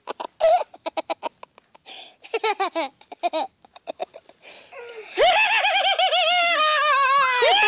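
A person laughing: quick bursts of ha-ha laughter, then about five seconds in a louder, long, high-pitched giggling laugh that pulses rapidly and slowly falls in pitch.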